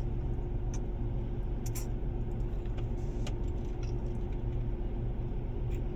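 Steady low hum of a car's engine idling, heard inside the cabin, with a few faint light clicks.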